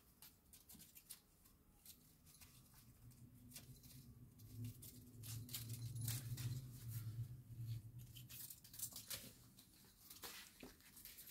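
Faint crinkles, light taps and soft pattering as a kitten bats and carries a crumpled paper ball across a laminate floor, in many short irregular ticks. A low hum rises about two seconds in and fades toward the end.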